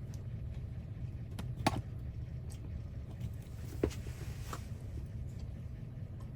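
A handful of light clicks and taps, scattered and a second or so apart, from working the controls of a code key-cutting machine, over a steady low hum.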